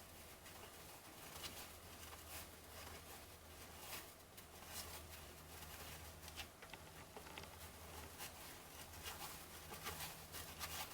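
Faint, scattered soft clicks and rustles of baseball cards being flipped through by hand, over a low steady hum.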